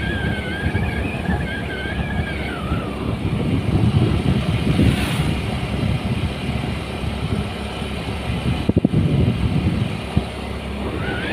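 Vehicle driving along a road: a steady low rumble of engine, tyres and wind. A wavering high whine runs over the first few seconds and comes back near the end, and there are a few sharp knocks about nine seconds in.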